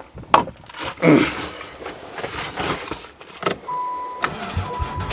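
Knocks and rustling of getting into a Chrysler van, then a steady high warning beep from the dash, and near the end the starter begins cranking the engine in quick even pulses without it catching, the engine being fed ether.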